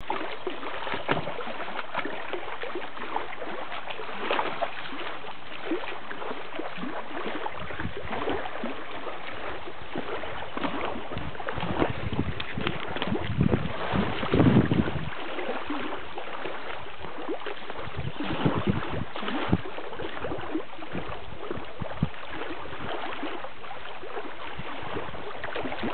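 Shallow lake water sloshing and splashing as a Bernese mountain dog wades and clambers through it among rocks, in irregular small splashes over a steady background wash, loudest about halfway through.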